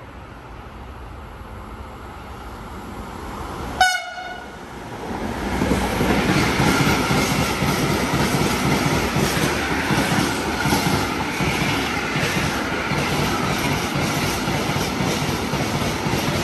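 Freight train approaching and passing at speed. The E483 electric locomotive gives one very short horn toot about four seconds in. A long string of empty container flat wagons then goes by, with rhythmic wheel clatter over the rail joints.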